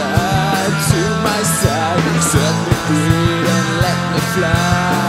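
Background rock music with a steady drum beat, bass and a wavering lead melody.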